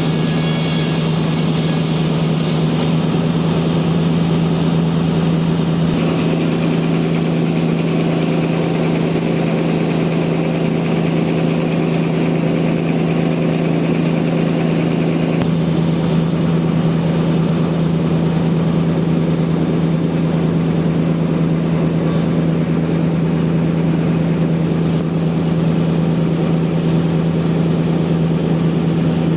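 Sawmill machinery running steadily with a constant low hum and hiss, its high hiss changing abruptly several times.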